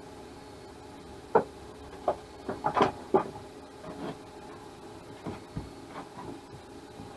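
Light clicks and knocks from small objects being handled at a workbench, with a quick cluster of them about two and a half to three seconds in, over a faint steady hum.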